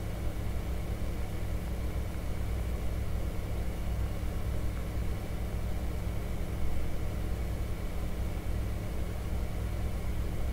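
Steady low hum of background room noise, with no other sound standing out.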